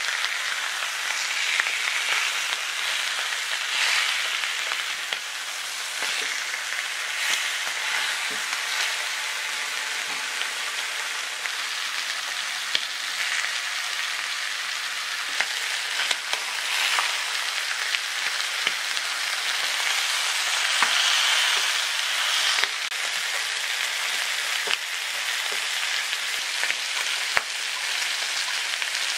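Marinated pork ribs sizzling in oil in a frying pan: a steady hiss with scattered pops and crackles.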